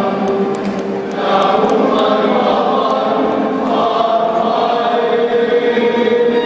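Large men's choir singing, holding long sustained notes in harmony, with a short break between phrases about a second in.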